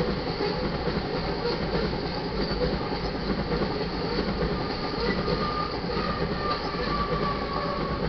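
MGPX iron ore cars rolling past in a steady rumble of steel wheels on rail. A faint, thin wheel squeal comes in during the second half.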